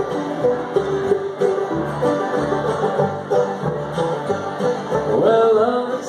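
Acoustic bluegrass band of banjo, fiddle, acoustic guitar and upright bass playing an instrumental passage of the song. Quick banjo picking runs over a steady beat of bass notes, and some notes slide upward near the end.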